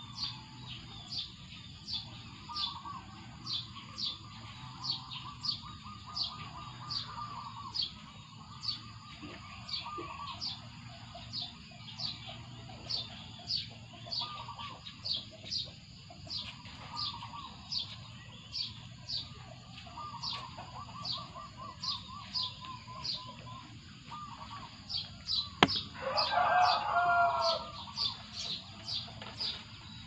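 Countryside birds calling: one bird repeats a short, high, falling chirp about twice a second throughout, with other birds' lower trilling calls in between. Near the end a rooster crows once, louder than the rest.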